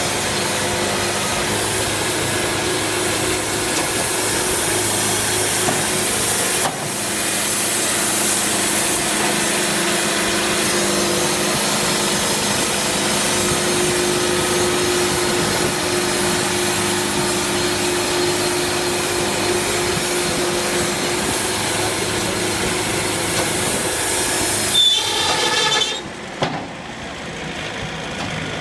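Sawmill blade cutting through a log with the mill's engine running, a loud steady noise. Near the end there is a brief squeal, then the sawing stops and the engine keeps running more quietly.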